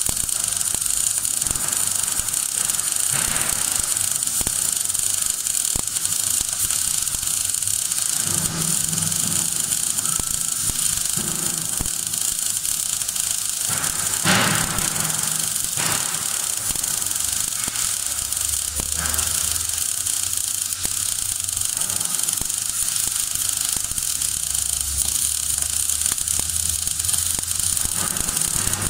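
MAG (gas metal arc) welding arc running steadily on a vertical-up root pass in steel plate, with a brief louder crackle about halfway through.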